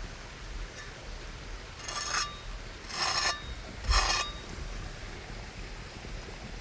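Three short scraping strokes, each under half a second and about a second apart, over a steady background hiss.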